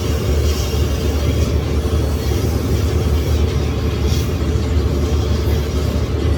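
Shoe-repair sole grinder running steadily, a loud low rumble as a shoe sole is ground on it.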